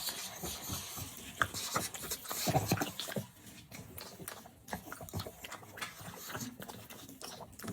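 Close-up eating sounds: irregular wet chewing, smacking and breathing over a plate of chicken stew.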